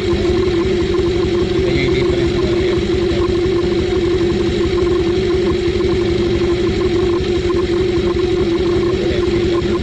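Honda Dio 2021 scooter's single-cylinder four-stroke 110 cc engine idling steadily, with an even, unchanging pitch.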